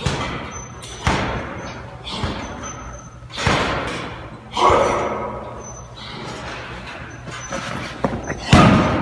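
Heavy punching bags being kicked and punched: a series of hard thuds at uneven intervals, about six in all, the loudest near the end, each echoing in a large hall.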